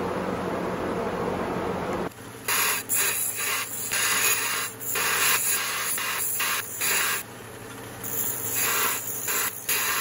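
Benchtop belt grinder running with a steady low hum while a small piece of W1 steel is pressed against the belt, giving repeated short bursts of grinding hiss about a dozen times. A steady rushing noise fills the first two seconds.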